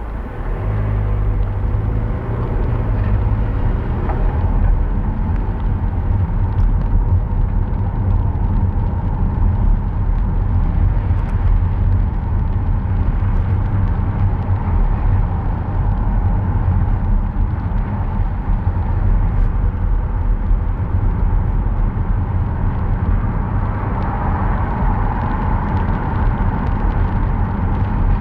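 Road noise of a car driving: a steady low rumble with tyre hiss, growing louder about half a second in as the car picks up speed.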